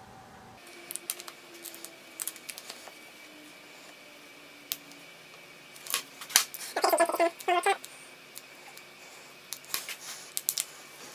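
Scattered light clicks and scrapes of a small pointed tool and scissors working leftover embroidery foam out of a puff-embroidered patch on stitched fabric, with a denser, rasping stretch of handling about six to eight seconds in.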